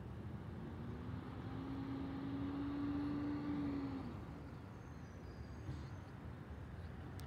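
A motor vehicle passing on the street: a steady engine hum that swells and rises slightly in pitch, then drops in pitch and fades about four seconds in.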